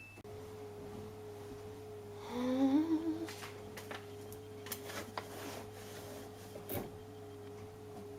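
Samsung washing machine starting its cotton cycle: a steady hum runs throughout, with a few faint clicks. About two to three seconds in, a person hums a short wavering tune.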